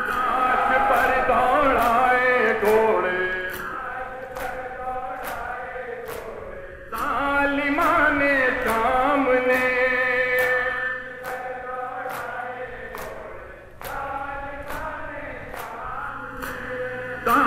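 A male reciter chants a noha (Shia Muharram lament) into a microphone, with a crowd of men's voices joining in. Under the chanting runs a steady beat of hand slaps on chests (matam), about one and a half a second.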